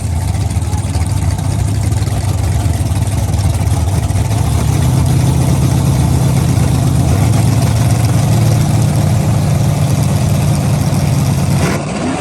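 A car engine running steadily with a deep note, its level rising a little about halfway through, then cut off near the end.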